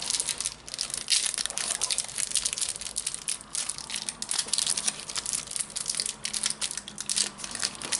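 A foil trading-card packet crinkles and crackles continuously as fingers twist and pull at it, trying to tear it open. The wrapper is tough and will not give.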